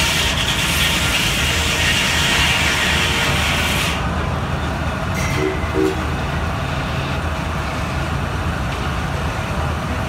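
Steam-powered sawmill running: a steady low rhythmic rumble from the machinery throughout, with a loud high hiss that cuts off suddenly about four seconds in.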